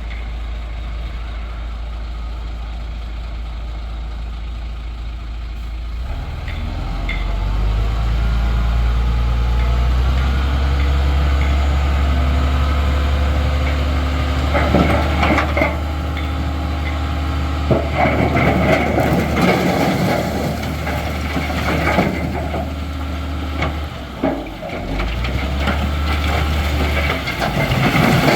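Heavy diesel earthmoving machinery: an engine running low and steady, then revving up over a few seconds and holding under load, with repeated bursts of clattering and scraping from about halfway on.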